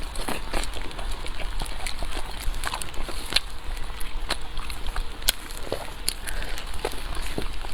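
Close-miked eating sounds: a person chewing food, with irregular sharp mouth clicks and smacks over a steady low hum.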